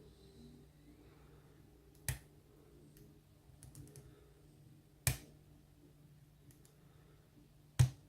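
Kryptonite padlock being picked: three sharp metallic clicks spaced a few seconds apart, with faint ticks of the pick between them. The last and loudest click comes as the core turns into a false set.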